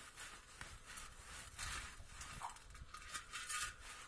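A cloth rubbed hard and fast over a rusty motorbike spoke wheel rim: a run of quick, uneven scrubbing strokes.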